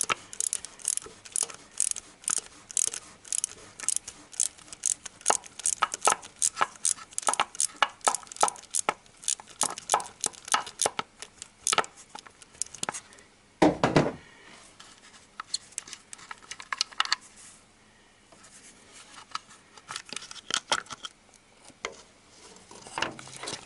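Ratchet wrench clicking in quick back-and-forth strokes as it unscrews a bolt on the Honda Civic D17A engine's inner timing belt cover. The clicking is dense for the first half, broken by one louder knock about 14 seconds in, then comes in shorter spells.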